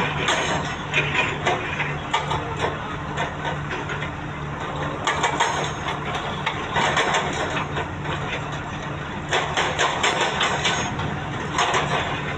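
Excavator's engine running steadily under a constant low hum, with louder bouts of rattling, scraping noise every few seconds as the machine works.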